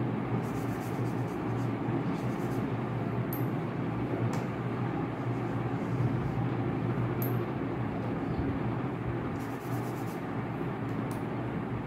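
Steady background hum and rumble with a constant hiss, unchanging throughout.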